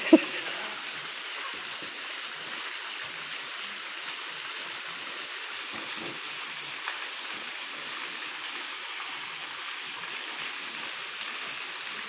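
Steady rush and splash of a small waterfall pouring into a pool, an even hiss of falling water. A single short, loud sound cuts in right at the start.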